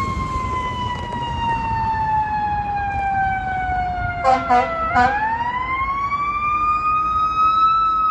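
Fire truck siren winding slowly down in pitch, then spinning back up about five seconds in: the slow coast-down and wind-up of a mechanical siren. Three short air-horn blasts sound just before it rises, over a low engine rumble.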